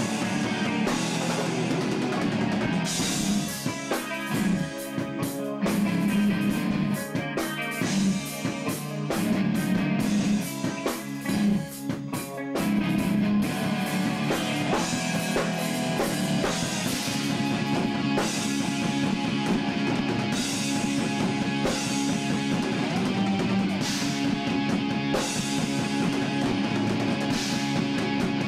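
Rock band playing live: electric guitar, bass guitar and drum kit. The first half is a choppy stop-start passage of hits and breaks, and from about halfway the full band plays steadily.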